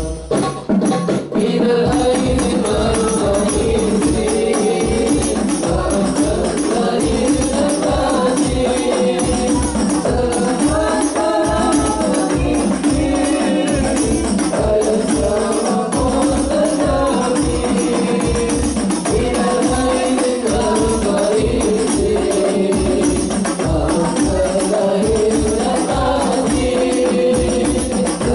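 Sholawat devotional song sung by male voices, a lead and a group, over a steady beat of rebana frame drums with jingles.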